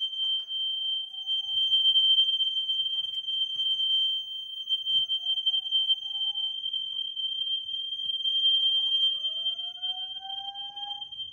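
Fire alarm mini horn strobe sounding a continuous high-pitched electronic tone. Beneath it, a fainter slow whoop from the alarm speakers rises in pitch three times, about four seconds apart: the evacuation signal of the audio-evac system.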